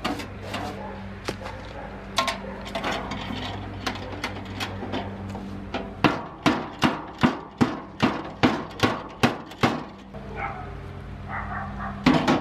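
A bristle brush scrubs and scrapes inside an old sheet-metal tool case, with scattered clicks. Then the upturned case is knocked about ten times in an even rhythm, a little over two knocks a second, to shake the dirt out. A single sharp knock comes near the end.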